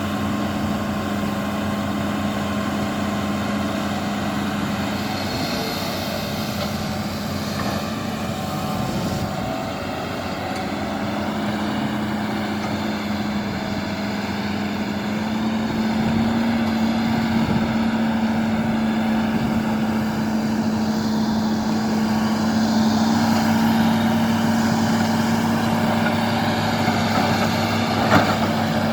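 Hitachi excavator's diesel engine running steadily as the machine works, a little louder and slightly higher in pitch from about halfway through. A single sharp knock near the end.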